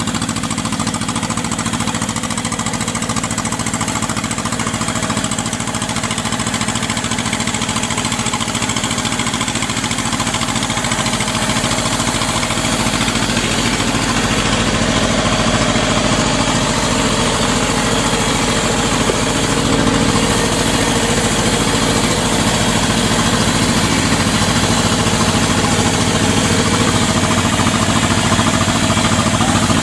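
Engine of a tracked rice-hauling cart running steadily under the load of its rice sacks, with a fast, even beat, getting a little louder in the second half.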